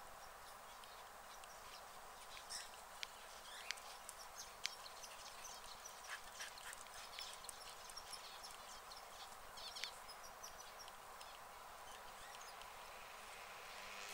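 Domestic rabbit cropping and chewing grass: an irregular run of small, crisp snips and crackles over a faint steady hiss, starting about two seconds in and dying away near ten seconds.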